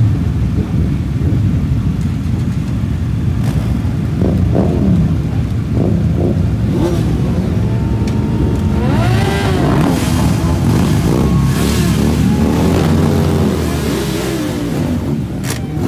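A group of motorcycles idling in a low, steady rumble. From about halfway through, engines rev up and down several times as bikes pull away.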